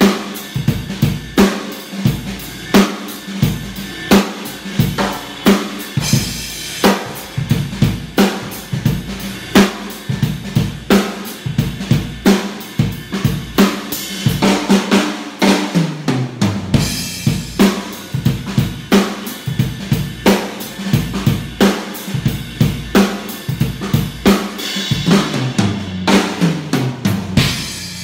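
Acoustic drum kit played solo: a steady groove of bass drum, snare and cymbals. It is broken about halfway and again near the end by fills that step down in pitch.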